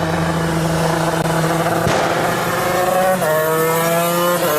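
Go-kart engine running steadily, then revving with a gradually rising pitch from about three seconds in. There is a single click near the middle.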